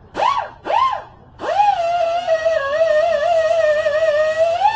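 A voice: two short calls that rise and fall in pitch, then one long held note, about four seconds, that wavers up and down.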